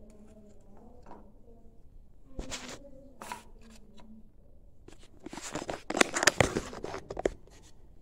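Rustling and clicking of bird seed and a clear plastic feed dish being handled. The sound is densest and loudest from about five to seven seconds in.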